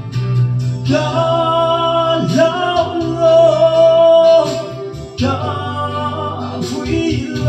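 A man singing a gospel song into a microphone, amplified through a portable PA speaker, with a backing track underneath; about halfway through he holds one long note.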